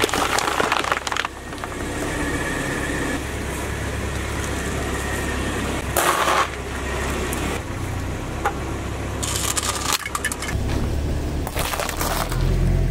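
A car tyre rolling slowly over objects and crushing them, in several short loud bursts over the low, steady running of the car's engine: plastic soda bottles bursting near the start, a crunch about six seconds in, and eggs cracking under the tyre near the end.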